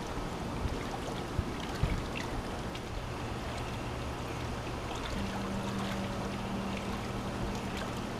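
Swimming-pool water sloshing and splashing, with scattered light clicks and a steady low hum underneath.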